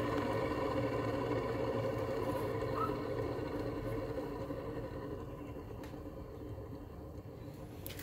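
Goldstar window air conditioner's fan motor and blower spinning down after being switched off from high: a steady hum that fades gradually over the second half.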